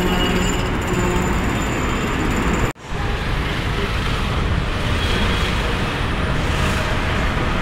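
Steady street traffic noise, a constant rumble of passing vehicles, cutting out sharply for a moment a little under three seconds in.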